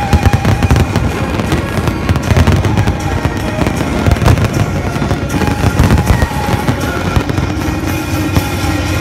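Aerial fireworks display, shells bursting in a dense, continuous run of bangs.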